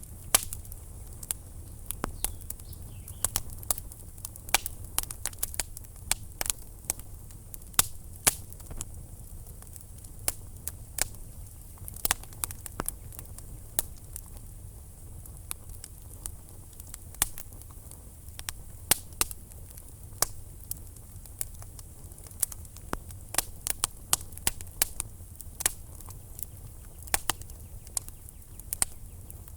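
Wood fire burning in a fireplace, crackling with frequent irregular sharp pops over a low steady rumble of the flames.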